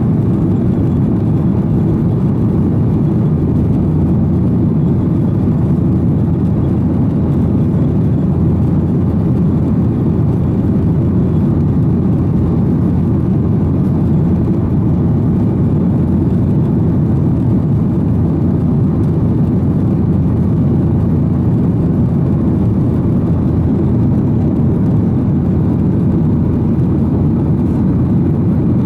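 Steady low roar inside the cabin of a Boeing 737-800 climbing after take-off: the CFM56-7B engines at climb power and the rush of air past the fuselage.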